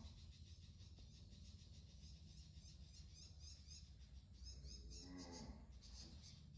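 Near silence: faint room hum with faint, rapid high-pitched chirping, and one short, low drawn-out call about five seconds in.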